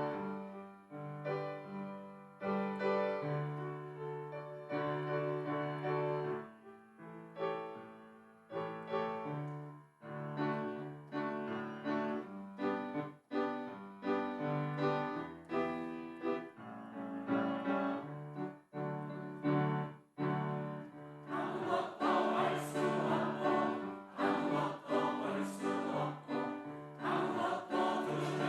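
Church choir anthem with piano: the piano plays an interlude alone, then, about three-quarters of the way through, the choir comes in singing over the piano accompaniment.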